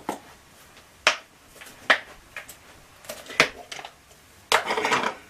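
Light clicks and knocks of plastic tubs and a spoon being picked up and set down on a table, with a short scraping rustle near the end.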